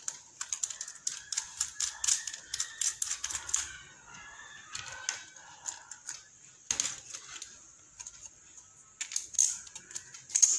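Rapid, irregular clicking and tapping of plastic switch and socket fittings and a hylam board being handled and fitted into place, densest in the first few seconds and again near the end.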